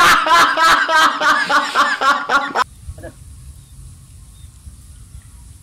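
A man's loud laughter, a rapid run of repeated 'ha' pulses, cutting off suddenly about two and a half seconds in. After that only a faint low rumble of background.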